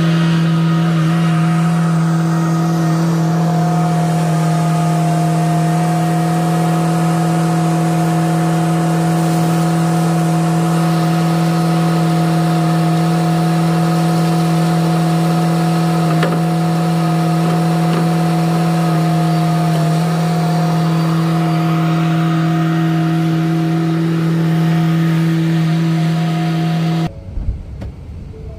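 Skid steer loader engine running steadily under load, a constant pitched drone that holds the same note throughout, cutting off suddenly near the end.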